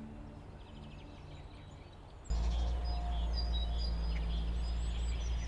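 Soft background music, then about two seconds in a sudden cut to outdoor ambience: a steady low rumble with birds chirping.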